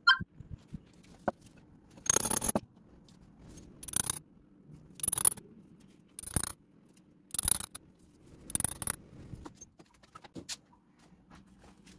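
Six short gritty scrapes about a second apart: a small metal pin being pushed and twisted into packed green moulding sand to bore holes in a sand-casting mould.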